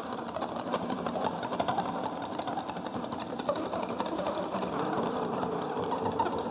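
Horror-film sound effect: a dense, rapid mechanical rattling that keeps on at an even level.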